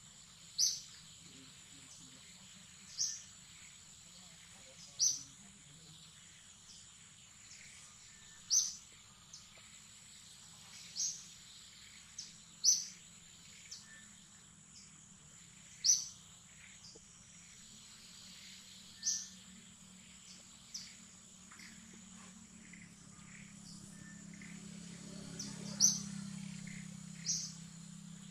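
A bird giving a short, sharp, high chirp again and again, one every two to three seconds, over a steady high insect drone.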